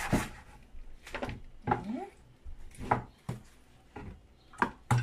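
Chef's knife chopping through a mackerel onto a plastic cutting board: a handful of sharp knocks at uneven intervals.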